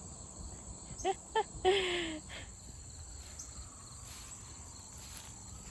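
Steady high-pitched chorus of insects, likely crickets, running throughout, with a few short voice sounds about a second in.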